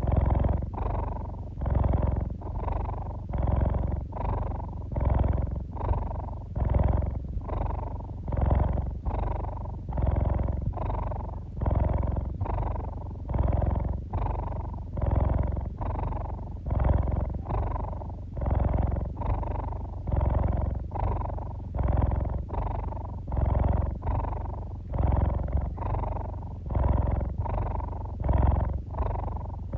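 Domestic cat purring close up, a steady low rumble that swells and fades with each breath about once a second.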